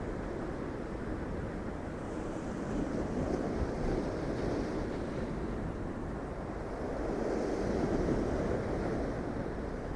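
Irish Sea waves breaking in a steady wash of surf that swells twice, about two and a half seconds in and again about seven seconds in. Low wind rumble on the microphone runs underneath.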